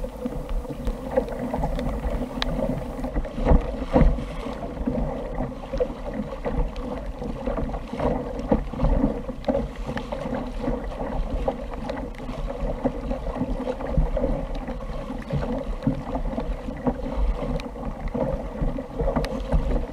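Choppy sea water lapping and slapping against a fishing kayak's hull, with wind buffeting the microphone and scattered small knocks.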